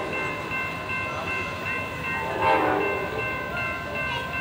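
Horn of an approaching Amtrak passenger locomotive, one short blast about halfway through, over steady high-pitched tones.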